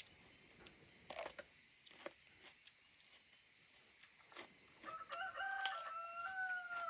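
Rooster crowing once, one long call of about two seconds starting about five seconds in, after a few faint clicks.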